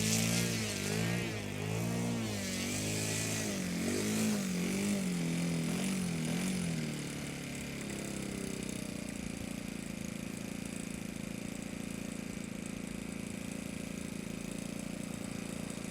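OS 120 FS four-stroke glow engine of an RC Macchi C.202 model running, its pitch rising and falling about once a second for the first half as the throttle is worked. It then settles to a steady idle.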